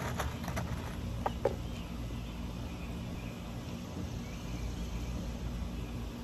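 A few light clicks and knocks in the first second and a half, over a steady low outdoor background rumble with a faint high chirring.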